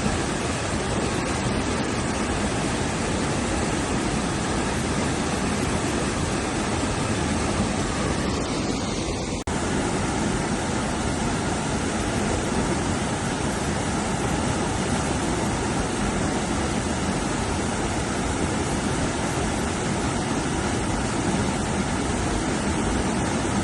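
Rushing river water, a steady unbroken roar of rapids, with a momentary drop about nine and a half seconds in.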